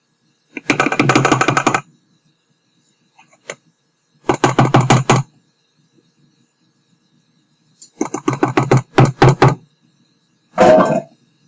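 A spoon stirring thick brownie batter by hand in a stainless steel mixing bowl, the bowl clattering with rapid clicks. It comes in four bursts of about a second each, the last one shorter.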